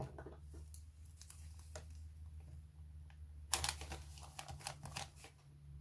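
Washi tape being handled on a paper journal page: scattered light clicks and taps, then a short crackly burst about three and a half seconds in as a strip of tape is torn and pressed down onto the kraft paper.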